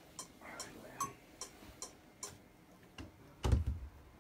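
Metronome click ticking evenly, about two and a half clicks a second, stopping a little past two seconds in. About a second later there is a single low thump.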